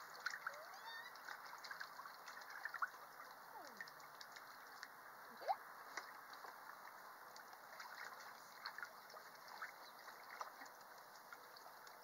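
Faint splashing and sloshing of shallow water in a plastic kiddie pool as puppies wade and step about in it, with scattered small splashes and a sharper one about five and a half seconds in.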